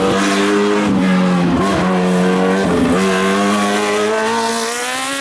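Racing car engine running hard on a hillclimb. Its note breaks off and picks up again a couple of times, at about a second and a half in and again near three seconds. It then rises steadily in pitch as the car accelerates.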